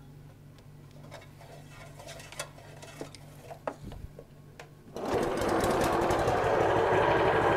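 Belt-driven stone-on-stone shallot and garlic grinder running: a low steady hum with a few small clicks, then about five seconds in a much louder, fast, even rattling grind starts up.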